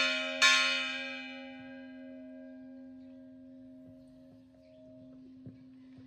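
Church bell ringing: a run of quick strikes ends with one last stroke about half a second in. The ring then fades slowly, its low hum lingering for several seconds.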